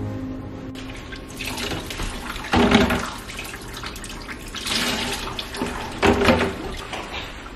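Water poured from a cup over a wet Shih Tzu standing in a plastic basin, splashing and gurgling into the water below in several pours. The loudest pours come about two and a half seconds in and again about six seconds in. Soft music fades out in the first second.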